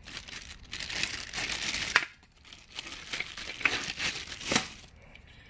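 Clear plastic packaging bag crinkling as it is handled, with metal bracket parts inside, broken by a couple of sharp clicks about two seconds and four and a half seconds in.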